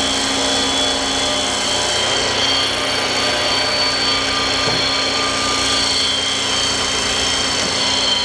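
Brown & Sharpe 1024U universal cylindrical grinder running with its belt-driven internal grinding spindle switched on: a steady machine hum with a constant high-pitched whine over it.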